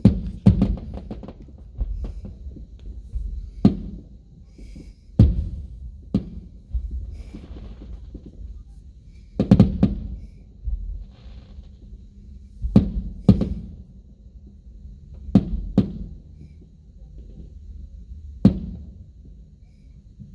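Aerial fireworks bursting, heard from inside a car: about a dozen booms at uneven spacing, each trailing off in a low rumble, with a quick run of bursts near the start and several close pairs later on.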